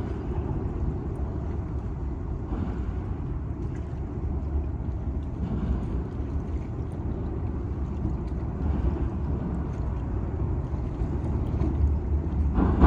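Wind buffeting the microphone: a steady low rumble, with a stronger gust near the end.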